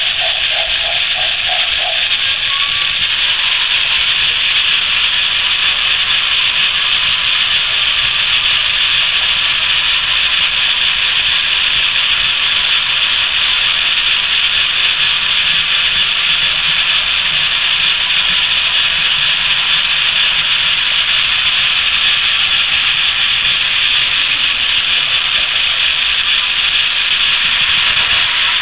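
Battery-powered toy locomotive's small electric motor and plastic gears running, a steady, unbroken whirring hiss heard close up from a camera mounted on the moving train.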